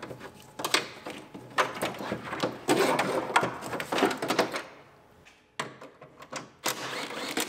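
A wiring harness being pulled out of a car's bare steel door shell: plastic clips and connectors clicking and rattling against the sheet metal, with rustling, for the first four seconds or so. A few more scattered clicks follow near the end.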